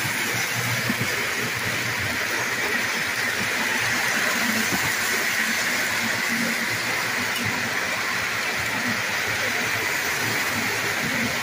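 Lionel O-gauge toy trains running on the layout: a steady whirring rumble of motors and wheels on three-rail track, with a constant hiss over it.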